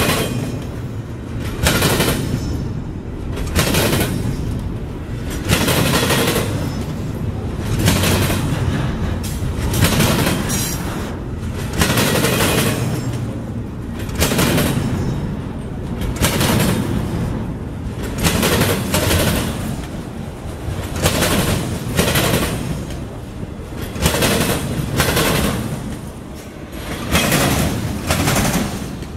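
Freight train of double-stack intermodal well cars and autorack cars rolling past at close range: a steady rumble of wheels on rail, broken every second or two by sharp clacks as the wheelsets strike a rail joint.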